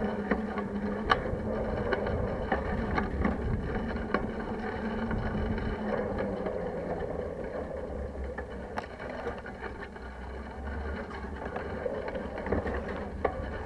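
Riding noise from a bicycle's handlebar-mounted camera: a steady rush of wind and tyre rumble on the road, with scattered clicks and rattles from the bike and mount.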